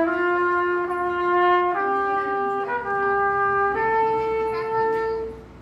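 A trumpet played solo, holding three long notes that each step up in pitch, then stopping for a breath near the end. The notes ring on in the reverberant stone arcade.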